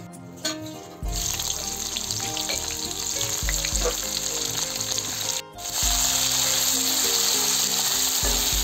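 Sliced onions frying in hot oil in a kadai: a loud, steady sizzle that starts about a second in, drops out briefly near the middle and comes back louder.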